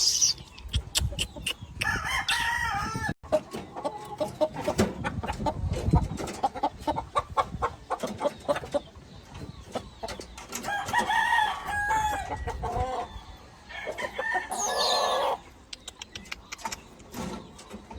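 Gamefowl roosters crowing several times, with clucking between the crows and frequent short clicks and thumps.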